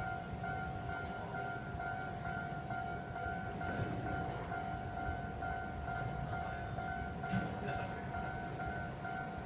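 Japanese railroad crossing alarm ringing its rapid, steady 'kan-kan' bell over a low rumbling noise.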